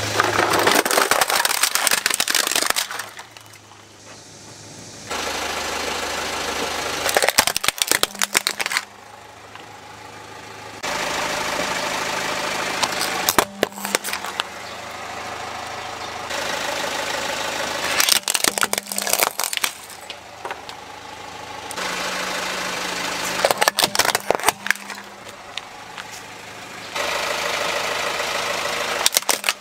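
A car running slowly as its tyre rolls over plastic toys, with clusters of sharp cracking and crunching plastic about every five seconds as each toy breaks under the wheel.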